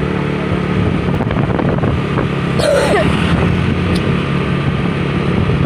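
Vehicle engine running steadily with a low drone, and a brief shout about three seconds in. No melodic telolet horn sounds.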